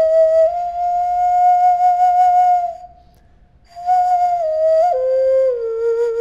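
A Maya flute being blown. It plays a long, clear held note, breaks off for about a second near the middle, then plays a short phrase that steps down in pitch.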